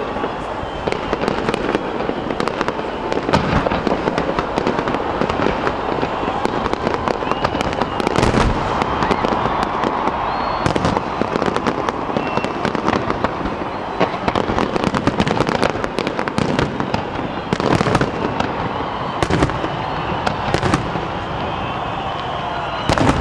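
An aerial fireworks display with shells bursting one after another in many sharp bangs and crackles. Several louder bangs stand out at intervals.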